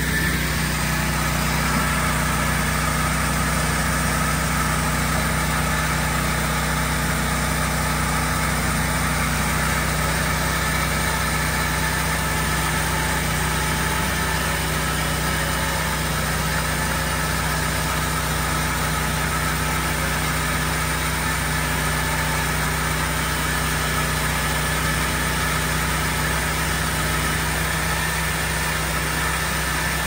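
An engine idling steadily: an even drone that holds one pitch.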